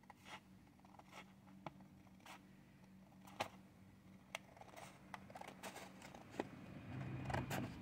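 Scissors cutting a thin plastic sheet: a quiet, irregular series of snips and crisp clicks as the blades close, with handling rustle growing louder near the end.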